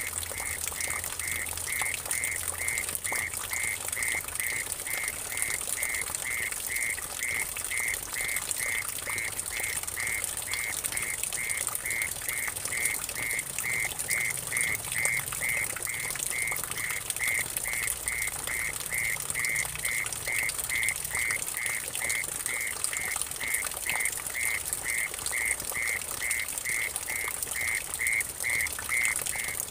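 Mole cricket (orong-orong) singing a steady pulsed call, about two pulses a second. Under it, water trickles and splashes into a puddle, with a steady high hiss.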